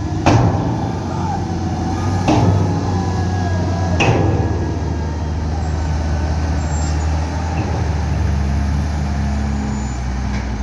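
Diesel engine of a tracked excavator running steadily under work, with three sharp clanks about two seconds apart in the first four seconds.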